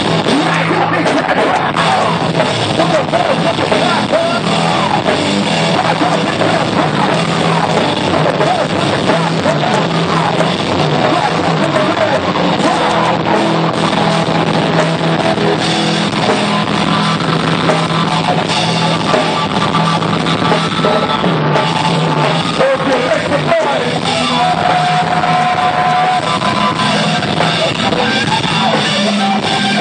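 Rock band playing live and loud, with guitar over a drum kit.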